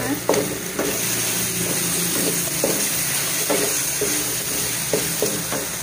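Chicken feet in oyster and soy sauce sizzling in a hot metal wok while a wooden spatula stirs them, with several scraping knocks of the spatula against the pan.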